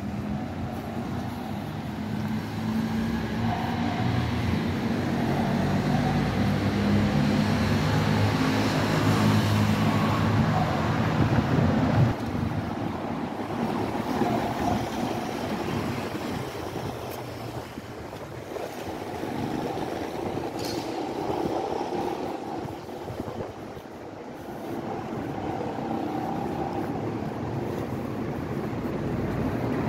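City street traffic: a vehicle's low engine hum grows louder and passes about twelve seconds in, then an even wash of passing traffic, with a brief high squeak about two-thirds of the way through.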